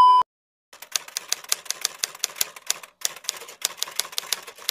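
Typing sound effect: rapid, uneven key clacks, about six a second, with a short break about three seconds in. A brief electronic beep cuts off at the very start.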